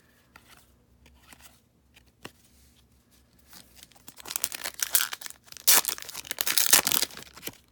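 A baseball card pack wrapper being torn open and crinkled, starting about four seconds in, after a few faint handling ticks.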